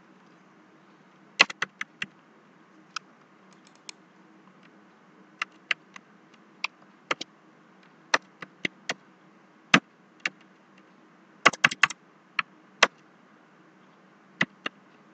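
Computer keyboard typing: scattered single keystrokes and short quick runs of keys, irregularly spaced, with a tight run of several keys about three-quarters of the way through, over a faint steady hum.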